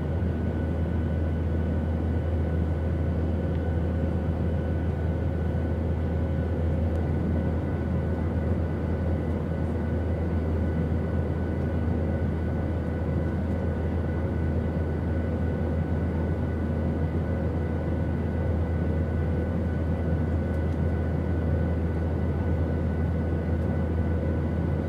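Steady drone inside an airliner cabin: a constant low hum with a few faint steady tones above it.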